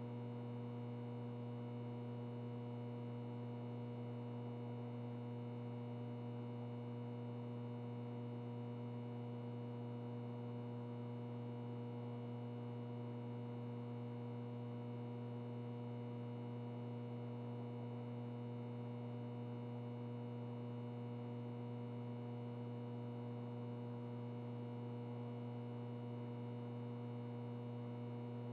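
Ventilation noise with a light electrical buzz: a steady low hum with evenly spaced higher overtones over a soft, even airy hiss, unchanging.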